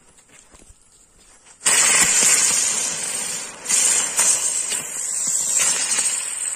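Two Joy Wheel ground spinners (large chakri fireworks) catching and spinning: a faint fuse fizz, then under two seconds in a loud spraying hiss of sparks starts abruptly. The hiss dips for a moment partway through and surges again, running on steadily.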